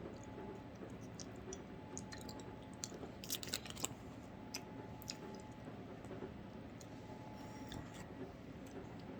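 A person chewing a mouthful of Nature Valley granola bar and cotton candy, with faint crunches and small mouth clicks; a short cluster of louder crackles comes about three and a half seconds in.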